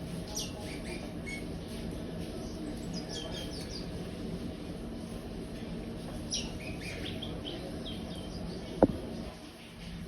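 Young curió (chestnut-bellied seed finch) singing in short, high chirping phrases, three bursts of song with pauses between. A single sharp click about nine seconds in.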